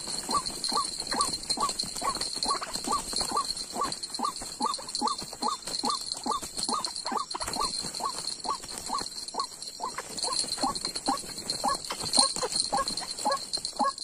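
White-breasted waterhen (dahuk) calling: a short note repeated evenly about twice a second, over a steady high-pitched buzz.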